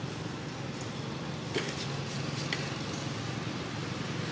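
Steady outdoor background hiss, with two light crackles about one and a half and two and a half seconds in.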